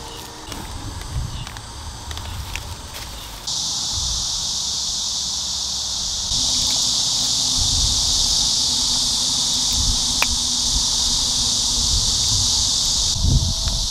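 Steady high-pitched buzzing of insects, coming in about three and a half seconds in and growing louder about halfway, over a low fluctuating rumble of wind, with a few light clicks in the first seconds.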